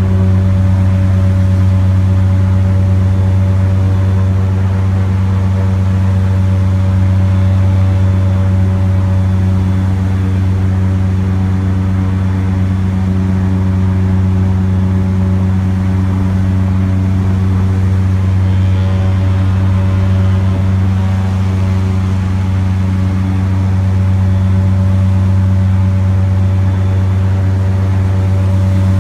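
Airboat engine and propeller running at a steady cruise: a loud, unbroken drone with a strong low hum.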